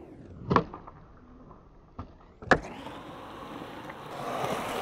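Skateboard tail popping for a flip trick, then a harder clack of the board landing about two and a half seconds in, followed by its wheels rolling on concrete, growing louder.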